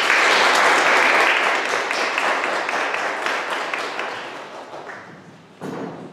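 Audience applause, breaking out suddenly and fading away over about five seconds.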